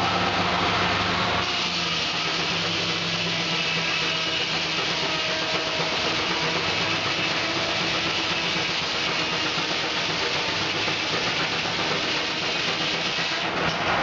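Sawmill blade, belt-driven by a Keck-Gonnerman steam traction engine, cutting lengthwise through a log as the carriage feeds it. The cut starts about a second and a half in and runs steadily until just before the end.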